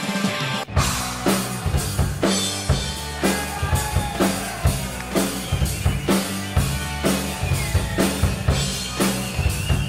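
Upbeat music with a heavy drum-kit beat, kick and snare hitting steadily. A different track cuts in after a short break about a second in.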